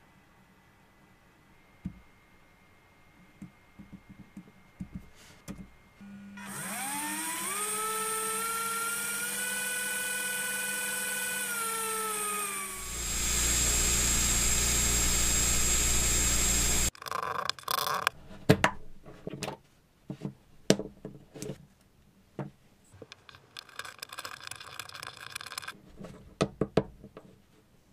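Small electric motors driving propellers: a whine rises in pitch about six seconds in, holds steady, then drops. A louder run with a low rumble follows and cuts off abruptly, then scattered clicks and knocks.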